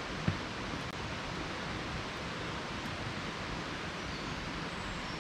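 Steady rushing of a waterfall and its river, an even hiss of falling water, with a single short thump about a third of a second in.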